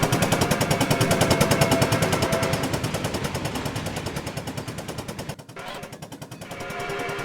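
Nickel Plate Road 765, a 2-8-4 Berkshire steam locomotive, working hard at speed: a rapid, even stream of exhaust chuffs. The chuffing fades about five seconds in and grows again near the end.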